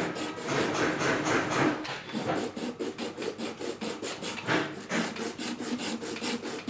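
Abrasive paper rubbing by hand on a cork rod grip, sanding it down in quick, even strokes.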